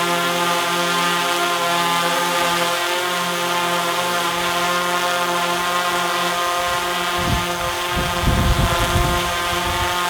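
DJI Mavic 3-series quadcopter flying, its propellers giving a steady whine of many layered tones. Low wind buffets on the microphone come in from about seven seconds in.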